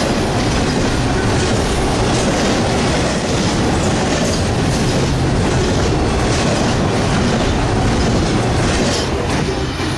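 Double-stack container cars of a CSX intermodal freight train rolling past, a steady rumble of wheels on rail with clickety-clack. The noise eases a little as the last car goes by near the end.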